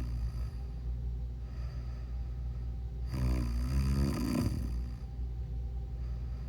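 A sleeping person snoring: one loud, pitched snore about three seconds in, lasting about a second and a half and ending in a rough, breathy rattle, with quieter breaths around it, over a steady low hum.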